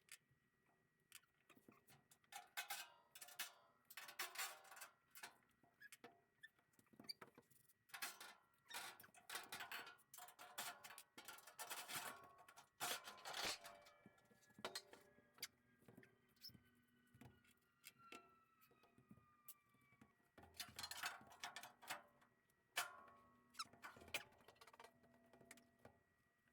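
Faint, scattered clinks, knocks and rattles of hand tools and metal parts being handled during disassembly work, coming in clusters, with two slow falling squeaks in the middle.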